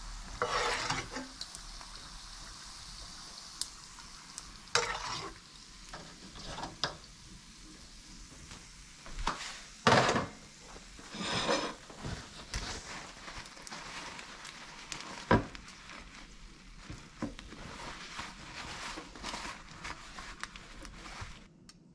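Hot oil sizzling steadily in a cast-iron skillet after frying chicken skins, with scattered knocks, scrapes and clinks of kitchenware, the loudest about ten and fifteen seconds in. Near the end a paper towel rubs over a glass plate.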